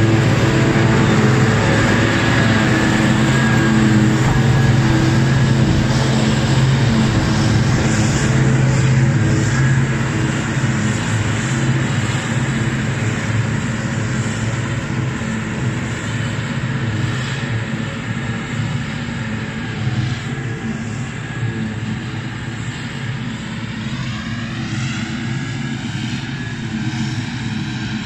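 Claas Jaguar self-propelled forage harvester running under load, its engine and chopper droning steadily as it picks up cut grass and blows it into a trailer. The drone fades gradually as the machine draws away, and a tone rises in pitch near the end.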